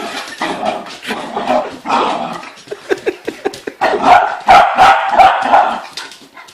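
Dog barking repeatedly in loud bursts, with the loudest, densest run of barks a little past the middle.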